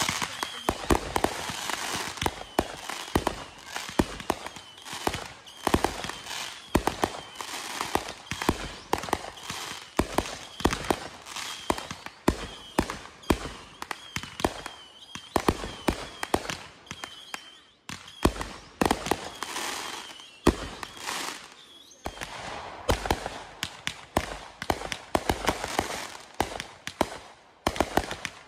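Fireworks going off in a rapid, irregular run of sharp bangs and pops, several a second, with two short lulls about two-thirds of the way through.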